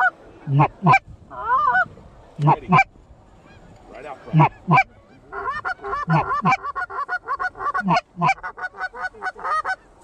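Goose honking: loud two-note honks in pairs about every two seconds, then from about five seconds in a fast, overlapping run of short clucks until just before the end.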